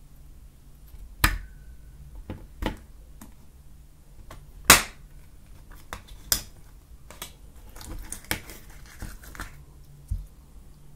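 Confetti-filled slime being pinched and squeezed by hand, giving sharp snapping pops and crackles at irregular intervals, the loudest about halfway, with a run of fine crackling near the end.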